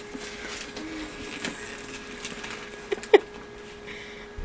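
Phone book pages rustling and crinkling faintly as hands grip, bend and twist the book trying to tear it in half, with two short sharp sounds about three seconds in.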